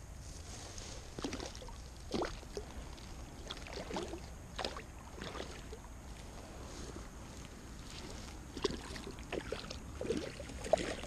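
Scattered, irregular rustles and light crackles of dry grass and dead leaves being disturbed at the water's edge, over a low steady background.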